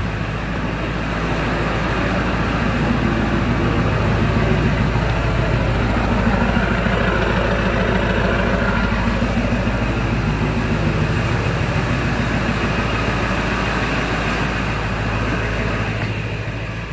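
Ford 7.3 L Powerstroke V8 turbodiesel running steadily with a new tune from a Hydra tuner loaded, heard close to its chrome exhaust tip. It grows a little louder after a couple of seconds and eases about a second before the end.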